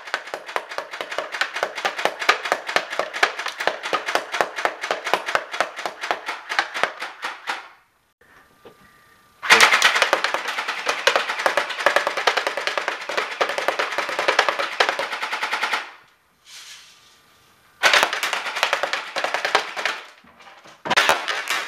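Crosman R71 battery-powered airsoft rifle firing on full automatic: long strings of rapid, sharp shots, four bursts with short pauses between them.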